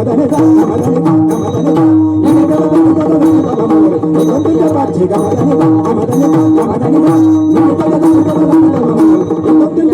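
Bhajan accompaniment: tabla-style hand-drum strokes in a steady rhythm, with gliding bass-drum tones, over a held melodic note.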